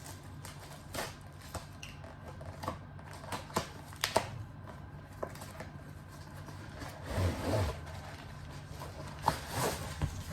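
Tripod box and packaging being handled and opened by hand: scattered clicks and taps, with a longer rustle of packaging about seven seconds in.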